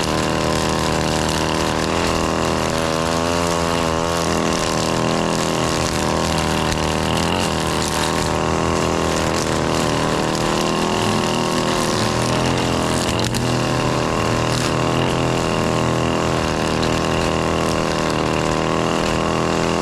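ECHO SRM-2620T string trimmer's two-stroke engine running steadily at high speed, with a brief warble in its pitch about three seconds in.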